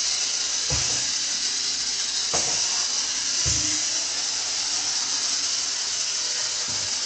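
Battery-powered toy forklift's small electric motor and gears whirring steadily as it drives across a wooden floor, with three soft knocks in the first four seconds.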